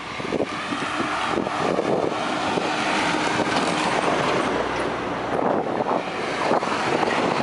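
Wind on the microphone of a camera mounted on the handlebars of a moving bicycle, with the bike rattling irregularly over the tarmac; a dump truck goes by close in the other lane about four seconds in.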